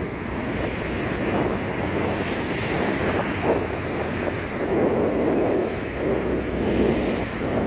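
Wind buffeting the microphone over the wash of sea waves, a steady rushing noise that swells and eases.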